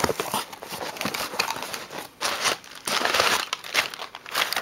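Packing material crinkling and rustling as a shipping box is unpacked by hand, an irregular run of crackles that grows louder around two to three seconds in.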